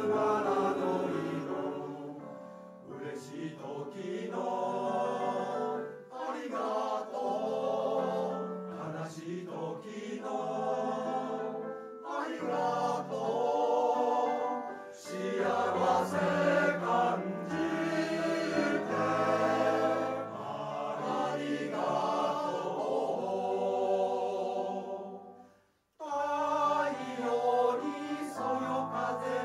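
Men's choir singing in several-part harmony, with deep bass voices under the higher parts. The singing fades and breaks off briefly near the end, then starts again.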